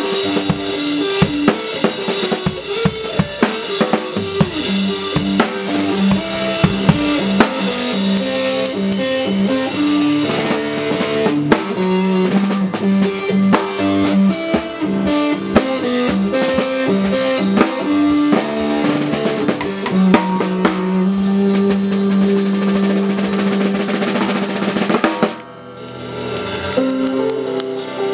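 Band playing an instrumental passage: a drum kit with sharp snare hits, rimshots and bass drum, over sustained guitar and bass notes. The playing drops out briefly about 25 seconds in, then comes back.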